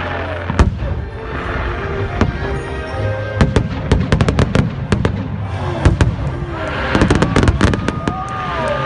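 Aerial fireworks going off: a rapid string of sharp bangs and crackles, packed densely in the middle and again near the end, with music playing underneath.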